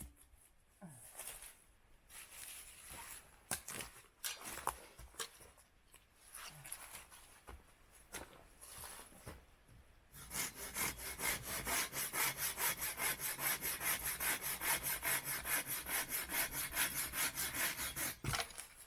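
Hand saw cutting through wood in quick, even back-and-forth strokes, starting about halfway through after some scattered knocks and handling sounds, and stopping abruptly near the end.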